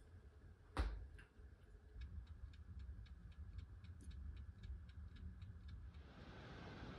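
Faint, rapid, even ticking, about five ticks a second, lasting a few seconds after a single sharp click; a soft steady hiss comes in near the end.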